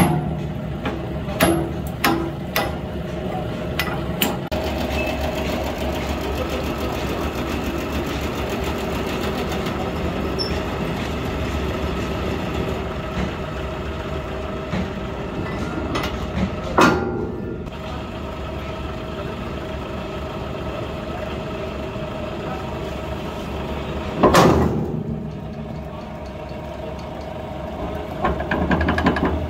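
A workshop machine running with a steady hum. A few sharp metal clanks come in the first few seconds, then two louder knocks, one a little past halfway and one about five seconds before the end.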